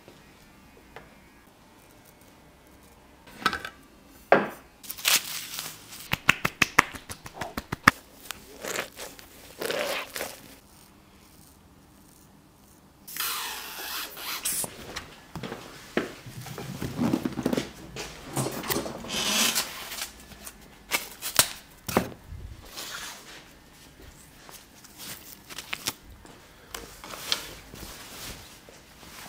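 Barbershop handling sounds: quick clicks and scrapes of barber tools, a hiss from an aerosol spray can about 13 seconds in lasting a couple of seconds, and a barber cape rustling near the end.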